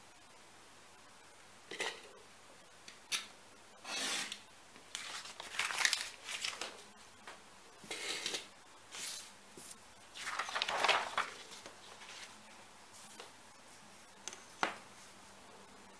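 Paper template sheets rustling and sliding as they are handled on a cutting mat, in a string of short bursts. A few light knocks come as a steel ruler is set down and moved.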